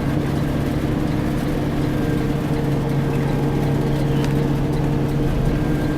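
Garbage truck's diesel engine pulling away and running at a steady note, heard from the cab, over the hiss of heavy rain.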